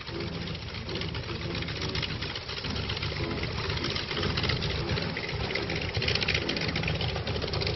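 Piston engine of a tandem-seat military trainer warbird running at low power on the ground, with a fast, steady beat.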